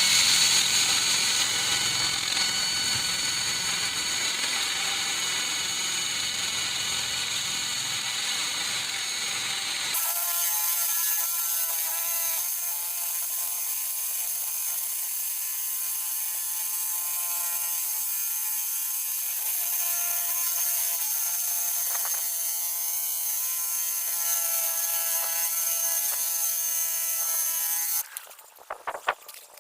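Bauer rotary hammer running in drill-only mode (no hammering), a steady geared motor whine. A rougher, deeper noise under the whine stops abruptly about ten seconds in. The motor cuts off near the end, followed by a few clicks.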